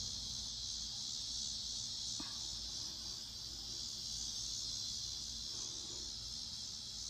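Steady, high-pitched chorus of insects, a continuous even drone that does not change.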